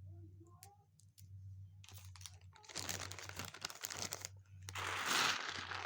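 Plastic bag crinkling and rustling as game pieces are handled, starting with a few light clicks and growing into steady crinkling from about three seconds in, loudest near the end.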